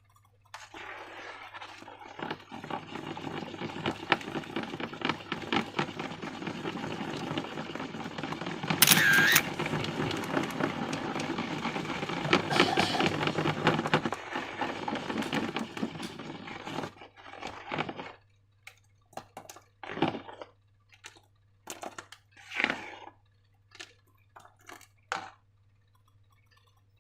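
Slime being stirred and squished: dense wet crackling and clicking for about 17 seconds, with one sharper squeak about nine seconds in, then scattered single squelches and clicks.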